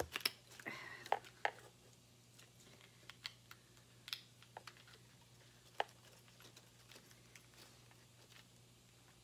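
Light, irregular clicks and taps of small plastic parts as a plastic daisy cat toy is handled and its petals pushed onto its base, a few sharper clicks in the first second and a half and one about six seconds in.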